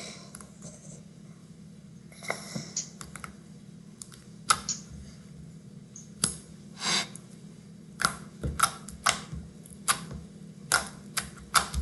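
Regular slime being squished and stretched by hand, making scattered wet clicks and pops that come faster in the last few seconds.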